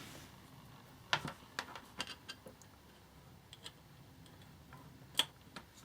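A scatter of light, irregular clicks and taps from hands handling the Raspberry Pi and its touchscreen hardware, likely while the power cable is plugged in. The loudest click comes about five seconds in.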